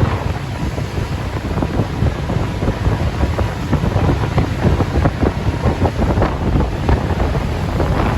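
Wind buffeting the microphone: a heavy low rumble with irregular gusty thumps.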